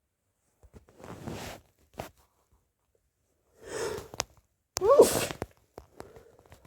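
A person sneezing: two noisy breaths, about a second in and again near four seconds, then one loud sneeze with a rising voiced cry about five seconds in.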